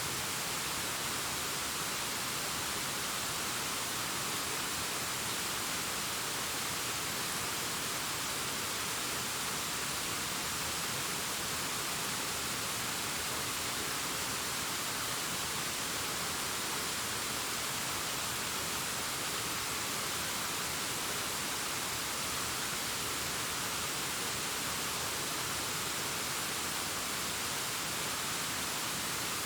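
Distant waterfall cascading down a rock face: a steady, even rush of falling water that never changes.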